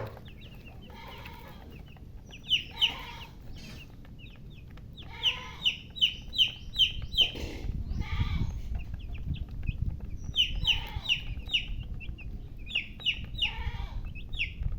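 Baby chicks peeping in quick runs of short, high chirps, with softer, lower clucking from a hen between the runs. A low rumble comes in about halfway through.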